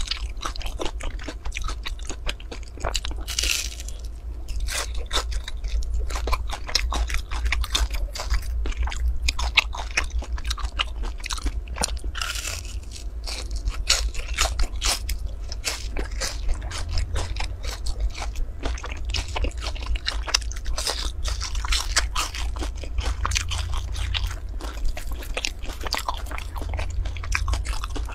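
Close-up crunching and chewing of crisp-crusted fried rice cakes: a dense run of irregular crunchy bites and chews, over a steady low hum.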